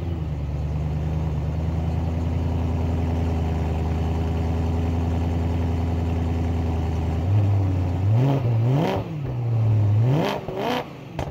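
BMW car engine idling steadily just after starting, then revved in a quick run of throttle blips about eight seconds in, each rising and falling in pitch, before dropping back to idle.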